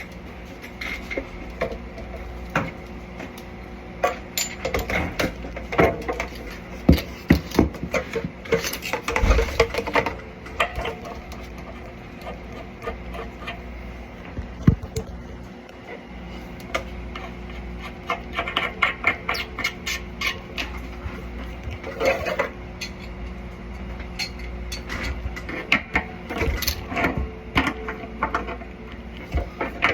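Irregular clicks, clanks and knocks of hand tools and metal parts being handled, in bunches with short pauses, over a steady low hum.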